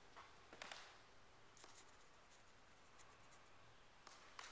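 Near silence: quiet room tone with a few faint taps and scuffs of footsteps on a hardwood floor.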